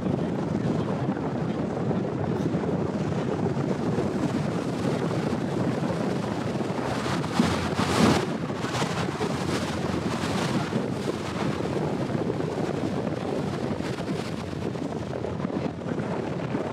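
Wind buffeting the microphone at the bow of a moving river water taxi, over a steady rush of boat engine and water, with a stronger gust about halfway through.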